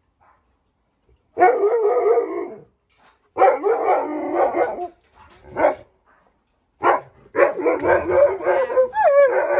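Alaskan Malamute howling and barking in loud bouts of a second or more, with a couple of short sharp barks between, the pitch wobbling up and down near the end. It is guard-barking at a window cleaner's ladder by the fence, protecting the house.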